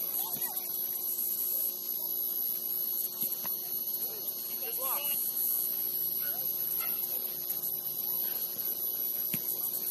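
Steady high-pitched hiss with a steady low hum under it, and a few faint distant shouts from players on the pitch.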